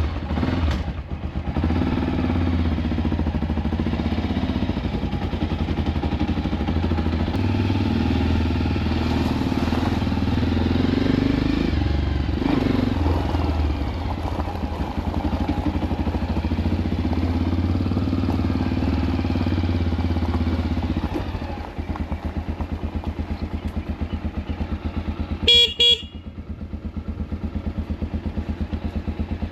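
Motorcycle engine running on the move, steady for most of the time and then dropping to a lower, quieter note. A short horn toot comes near the end.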